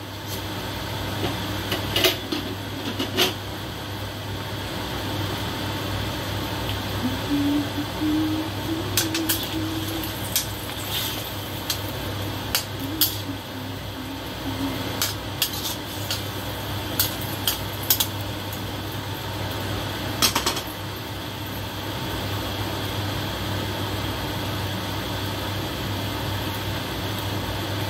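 A cooking utensil knocking and scraping against a stainless steel wok while stirring simmering chicken wings and potatoes, in scattered clinks over a steady low hum; the clinks stop about two-thirds of the way through.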